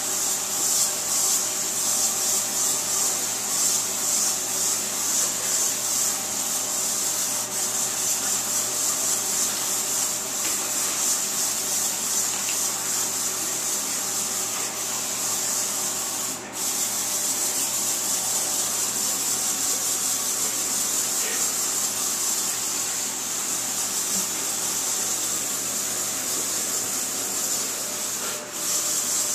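Axe body spray aerosol can spraying in a long, continuous hiss, broken briefly about sixteen seconds in and again near the end.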